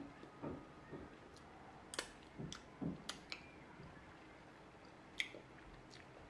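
Mouth sounds of someone eating raw honeycomb: sticky lip smacks, sucking honey off the fingers and chewing the waxy comb, heard as a scattered series of short, wet clicks.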